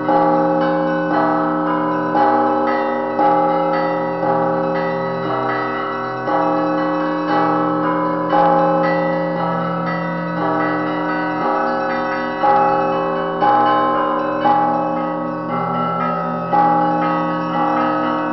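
Russian Orthodox church bells ringing: several bells of different pitches struck in a steady rhythm, with strokes about once a second over the lingering ring of the bells.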